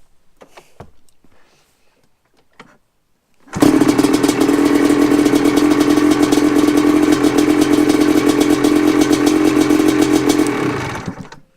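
1985 Yamaha Tri-Z 250 three-wheeler's two-stroke engine running steadily with a fast, even pulse. It comes in suddenly about three and a half seconds in and dies away shortly before the end, shut off by the newly fitted tether kill switch.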